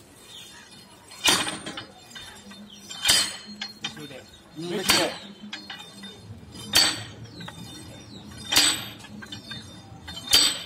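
Metal drop hammer of a hand-operated, rope-lifted soil boring rig, used for a standard penetration test (SPT), falling onto the drill rod: six sharp metallic clanks, each ringing briefly, spaced a little under two seconds apart.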